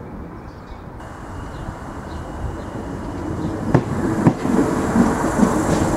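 Irish Rail 8100 class DART electric multiple unit drawing near, its rumble growing steadily louder. A thin high whine runs through the first few seconds, and sharp wheel clicks over rail joints begin about four seconds in.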